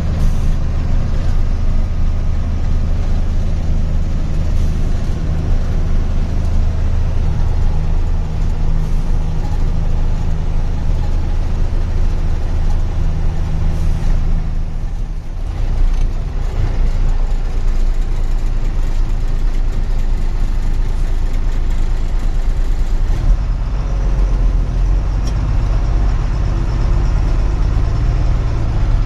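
Truck engine running steadily on the move, heard from inside the cab along with road noise. About halfway through the engine note changes, with a brief dip in loudness, and later it settles into a different, lower steady note.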